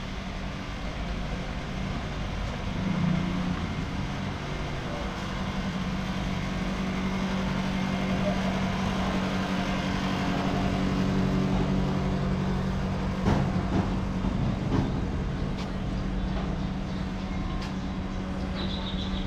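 A motor running at a steady speed, a low even hum that grows louder over the first few seconds, with a few knocks about thirteen to fifteen seconds in.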